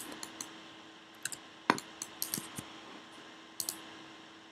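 Scattered clicks of a computer mouse and keyboard, about a dozen light ticks with one sharper click a little under two seconds in, over a faint steady hum.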